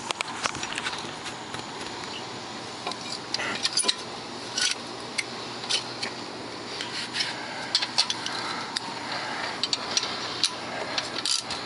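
Loose metal sockets and hand tools clinking and scraping as they are handled and sorted, irregular sharp clicks over a steady background hiss.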